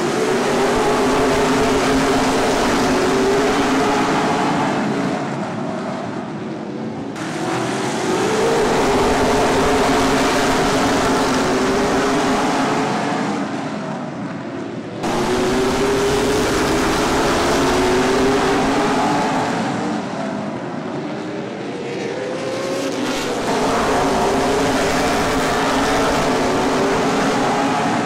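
A pack of V8 late-model stock cars racing past on a short oval. The engines rise in pitch as they accelerate and swell and fade in waves as the field goes by, with two abrupt jumps in level where the recording cuts.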